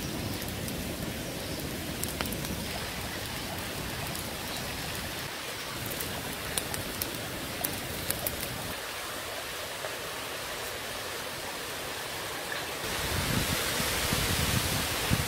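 Open wood fire burning on logs: a steady rush of flames with scattered sharp crackles and pops. Near the end a louder, brighter hiss takes over.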